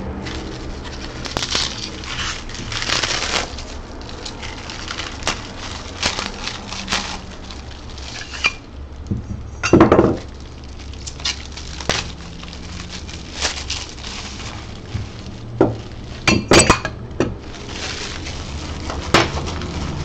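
Parts of an Ender 3 3D printer kit being unpacked and handled: rustling packing material with scattered clinks and knocks of parts being picked up and set down, the loudest knock about ten seconds in and a quick cluster of knocks near the end.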